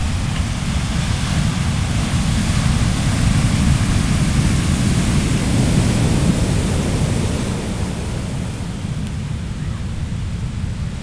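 Heavy surf from a distant hurricane's swell, breaking and rushing on the beach as a continuous roar, with wind rumbling on the microphone. It eases slightly in the last few seconds.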